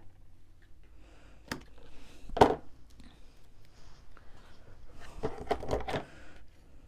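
Craft tools being handled on a cutting mat: a pair of scissors laid down and a bone folder picked up, giving a few light clicks and taps, the sharpest knock about two and a half seconds in and a cluster of taps near the end.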